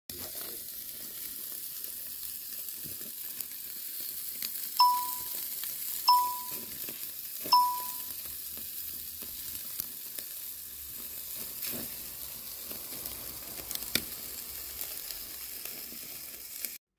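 Meat skewers sizzling over charcoal on a grill, a steady hiss with scattered small crackles. Near the middle come three short, bright dings about a second and a half apart, louder than the sizzle.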